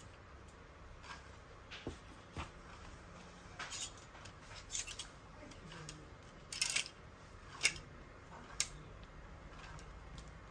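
Clothes hangers scraping and clicking along a clothes rail as garments are pushed aside one by one, with fabric rustling: about eight short, irregular scrapes, the longest and loudest a little past the middle.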